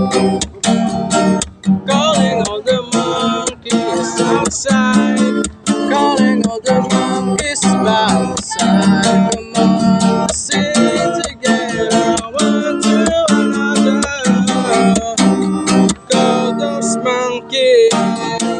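Acoustic guitar strummed in a steady rhythm, with a gliding melody line over it.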